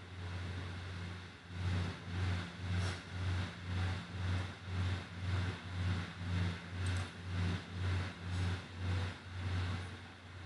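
A low machine hum that, from about a second and a half in, throbs evenly about twice a second and settles back to a steady hum near the end.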